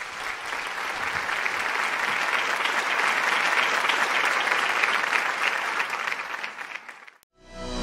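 Audience applauding, building over the first couple of seconds and then cut off abruptly about seven seconds in. Music starts just after.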